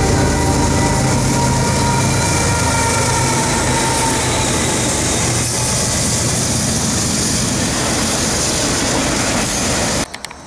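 Diesel-hauled freight train passing close by. The locomotives' engine drone comes first, then the steady rumble and rattle of the wheels and cars on the rails, and the sound cuts off suddenly near the end.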